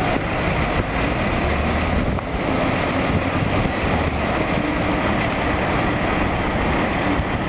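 A mobile crane's diesel engine running steadily at a loud, even level.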